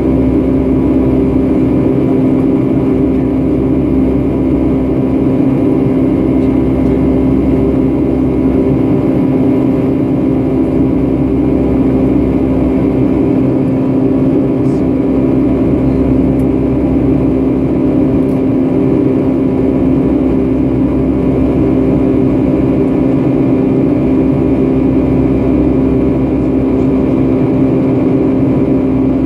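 Steady drone of a Boeing 757-300's jet engines and rushing air heard inside the passenger cabin, with an even low rumble and a constant hum.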